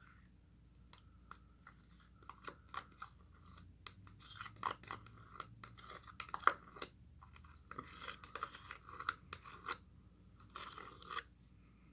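Irregular scraping and clicking of a utensil against a container and plate as blueberry compote is spooned and spread onto pancakes, busiest in the second half.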